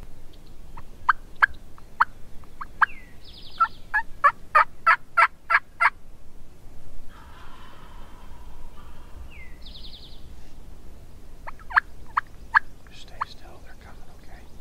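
Wild turkeys calling: a string of short, sharp yelps that quickens and grows louder, then a gobble about seven seconds in, and a few more yelps near the end.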